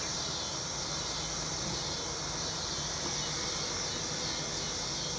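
Steady buzzing of honeybees around an opened hive, with a continuous high-pitched hiss over it. The bees are being stirred up by the hive being opened without smoke.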